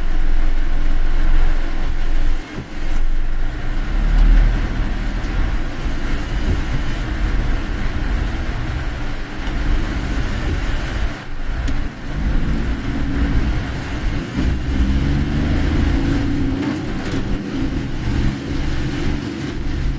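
Road noise of a car driving on a rain-soaked road, heard from inside the cabin: a steady low rumble under a hiss of tyres on wet tarmac, swelling and easing a little as it goes.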